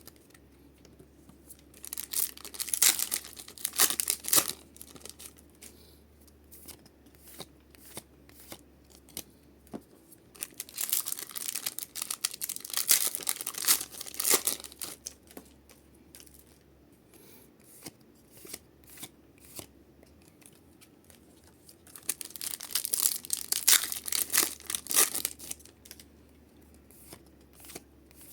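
Pokémon booster packs being torn open, their foil wrappers ripping and crinkling in three bursts, with light clicks and rustles of cards being handled in between.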